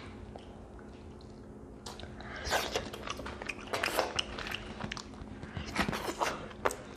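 Close-up eating sounds: crawfish shells crackling and clicking as they are twisted and peeled by hand, with chewing. Mostly quiet for the first two seconds, then a busy run of crackles.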